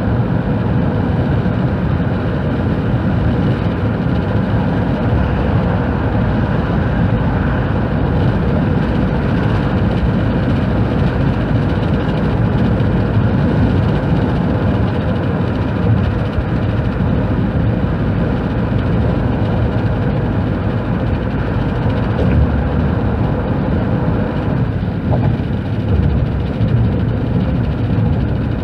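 A car driving along at road speed, heard from inside the cabin: a steady low rumble of road and engine noise.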